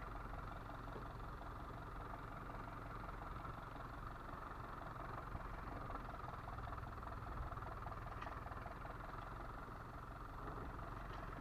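Fishing boat's engine running steadily at a low, even pulse.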